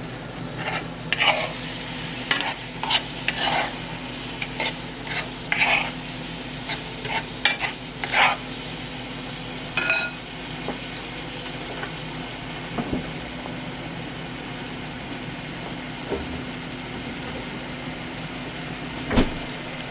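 Cinnamon-sugar coated banana slices sizzling as they fry in a pan, with a utensil scraping and clicking against the pan over the first half. A single ringing metal clink comes about ten seconds in, and a thump near the end.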